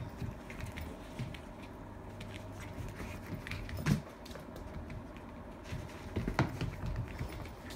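Two Italian greyhounds' paws pattering and scrabbling on a rug and blanket as they play, with scattered light taps and two louder thumps, one about four seconds in and one about six and a half seconds in.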